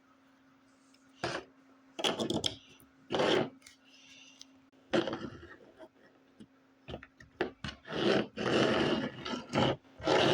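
Irregular bursts of rough scraping and rubbing, some short and some lasting about a second, over a faint steady hum.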